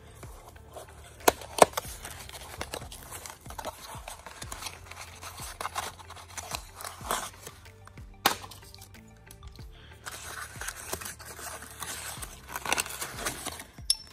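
A small cardboard box being opened and a paper wrapping crinkled and peeled off a metal cup, with a few sharp clicks, the loudest about a second and a half in and another near the middle, over quiet background music.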